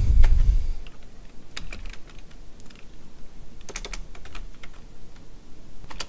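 Computer keyboard typing: scattered key clicks, a quick run of them about two-thirds of the way through, after a low thump at the start.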